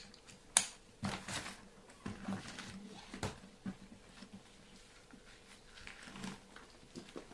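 Handling noise from a nylon food delivery backpack being adjusted by hand: rustling fabric and straps with several sharp clicks, the loudest about half a second in.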